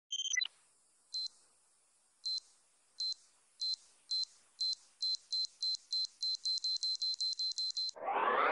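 Logo-intro sound effect: a short electronic blip, then a single high electronic beep repeating about twenty times, faster and faster like an accelerating countdown. Near the end a rising whoosh begins to swell.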